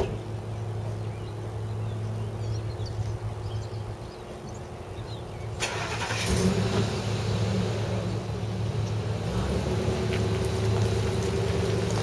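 Wind gusting across the camera's microphones. The rushing picks up suddenly about halfway in and stays strong, over a steady low hum.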